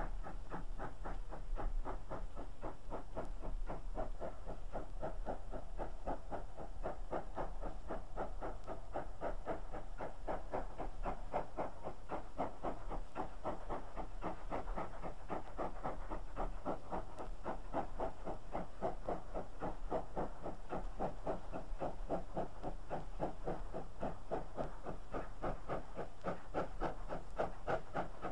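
GWR 4300 class 2-6-0 steam locomotive working a goods train, its chimney exhaust beating in a steady, even rhythm with a hiss of steam.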